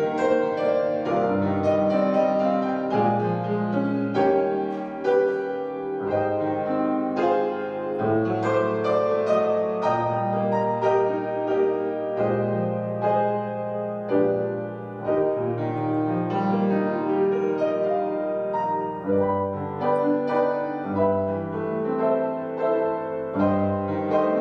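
Piano or keyboard music: slow sustained chords with a melody over them.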